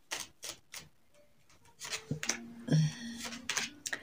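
Tarot cards being handled and laid down on a cloth-covered table: a few sharp clicks in the first second, then a busier run of taps and rustling in the second half.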